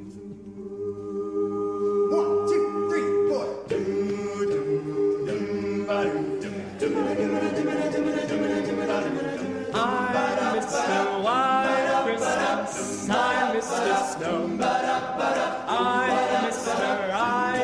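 A small group of voices singing a cappella in harmony: long held chords for the first few seconds, then a livelier passage with notes that scoop upward.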